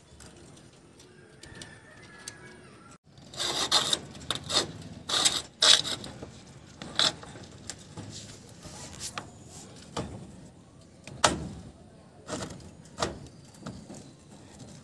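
Irregular clinks and knocks as a PVC electrical conduit pipe is handled and tied onto steel rebar mesh. A dense flurry of sharp taps comes a few seconds in, and then single knocks about once a second.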